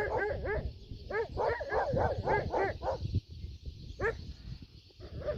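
An animal calling in quick runs of short, barking calls. There is a break about three seconds in and a single call about four seconds in. A steady hiss lies underneath.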